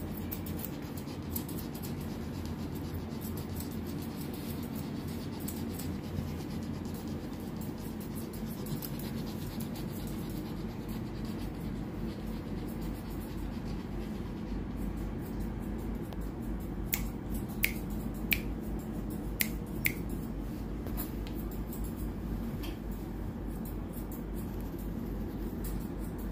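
Grooming scissors snipping a dog's coat: soft repeated cutting sounds, with a handful of sharper metallic clicks about two-thirds of the way in, over a steady low hum.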